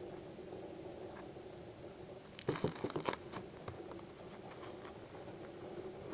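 Cling film crinkling and crackling as it is pulled off the roll and wrapped around a sandwich, in a burst lasting about a second, a little over two seconds in. A faint steady hum runs underneath.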